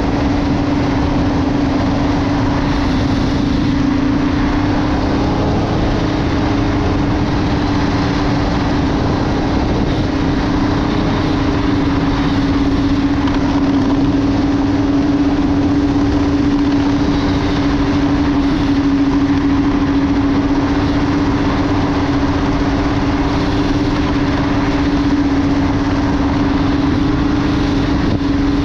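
Ski-Doo Renegade Adrenaline snowmobile engine running at a steady cruising speed: a constant droning note over a broad rushing noise. The pitch shifts slightly about five seconds in, then holds.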